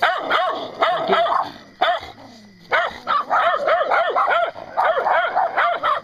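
Small black-and-tan dog barking rapidly and repeatedly in quick runs of short, high yapping barks, with a pause of about a second partway through.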